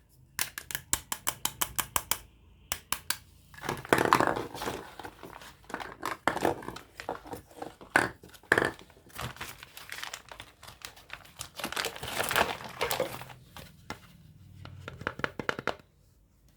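Plastic packaging being handled, crinkling and tearing, as a toy set is unpacked. There is a quick run of sharp clicks near the start and another near the end.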